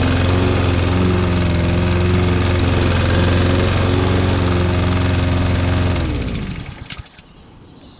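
Honda GCV160 engine on a Toro walk-behind lawn mower running steadily, then shut off about six seconds in, winding down and falling in pitch within a second.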